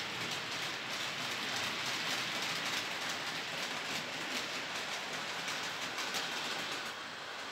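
TT-scale model freight train of open wagons rolling along the track, its wheels making a steady rushing rattle with fine clicking over the rails. The sound drops a little near the end.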